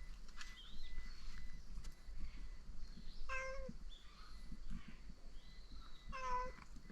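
Cats meowing, with two clear meows about halfway through and near the end, and fainter, higher mews in between.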